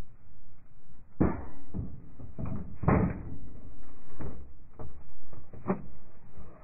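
A series of irregular metal clanks and knocks as the crew handles the M119A3 howitzer's breech and gear.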